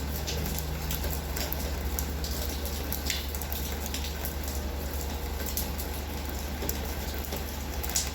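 Heavy rain falling, a steady hiss dotted with many sharp ticks of drops striking, over a steady low rumble.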